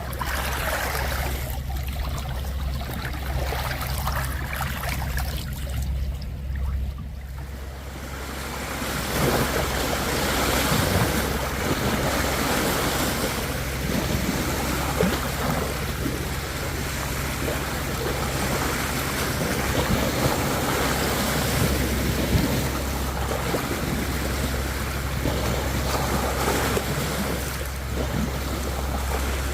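Water lapping and wind noise on the microphone over a steady low hum, growing louder and rougher about eight seconds in.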